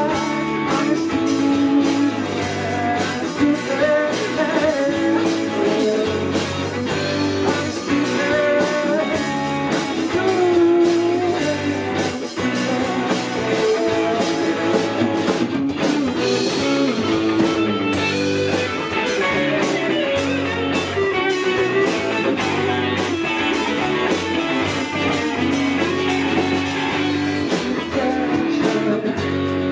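Rock band playing live: electric guitar, bass and drums with a steady beat, and singing over it.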